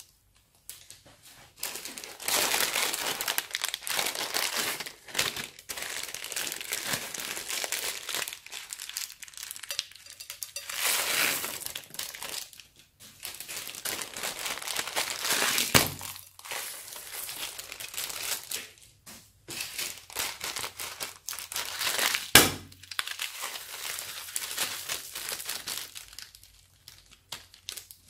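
Thin clear plastic bags crinkling as they are squeezed and shaken out, in irregular bursts, with small plastic pieces (beads and cut straw bits) pouring out of them into a glass bowl of slime. Two sharp knocks stand out, one about halfway through and a louder one about three-quarters of the way in.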